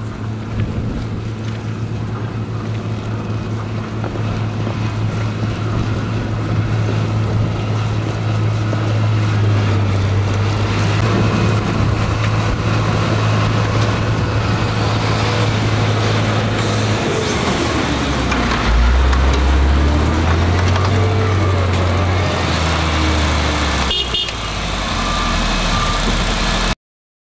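Heavy diesel engines of snow-clearing vehicles, a road grader and a snowplough truck, running with a steady low drone that shifts to a lower, changing note about two-thirds of the way through. The sound cuts off suddenly near the end.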